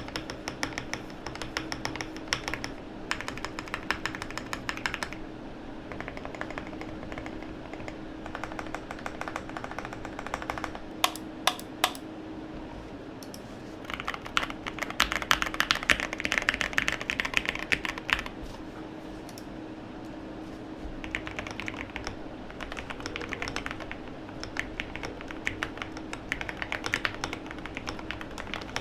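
Typing on a KBD67 Lite R3 mechanical keyboard with lubed Gateron Milky Yellow linear switches: rapid keystrokes in runs, with four single heavier strokes about eleven seconds in and a louder, faster stretch of typing soon after.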